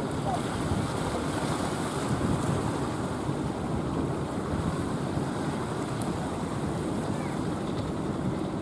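Heavy surf breaking and churning, a steady loud rush of water with wind buffeting the microphone.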